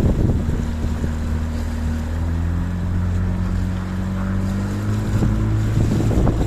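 Motorboat engine running steadily, its note shifting and slowly rising, with wind buffeting the microphone.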